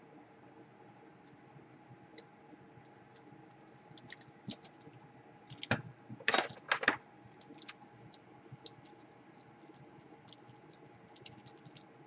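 Scattered small clicks and taps of handling, with a few short crackling rips about six to seven seconds in, as a strip of orange Kapton-style tape is pulled off the roll.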